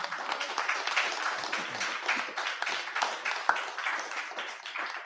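Small audience clapping, a dense patter of hand claps that thins out near the end.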